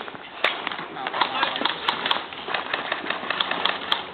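Airsoft guns firing scattered single shots, sharp irregular pops and clicks, with voices in the background.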